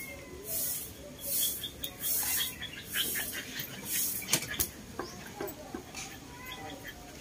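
Birds chirping over a very high hiss that pulses about once a second, with two sharp clicks about four and a half seconds in.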